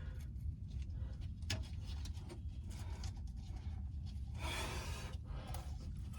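Faint rubbing and scattered small clicks of hands working on spark plug wires, with a sharper click about one and a half seconds in and a short rustle about four and a half seconds in.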